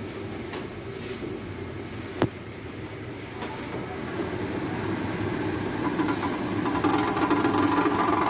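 Steady mechanical hum and whir with one sharp click about two seconds in. It grows louder from about halfway, and a whine joins near the end.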